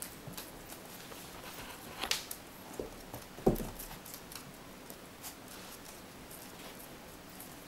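Four-week-old miniature bull terrier puppies' claws pattering and clicking on a hard wood floor as they walk, with a louder knock about three and a half seconds in.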